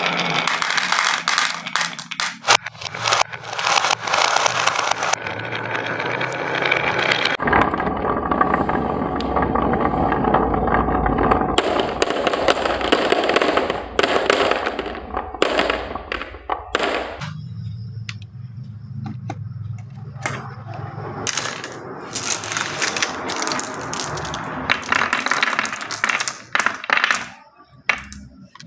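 Marbles rolling and clattering down a wooden marble run, with many quick clicks of marble on wood. For a stretch in the middle a steady low hum runs under the clatter.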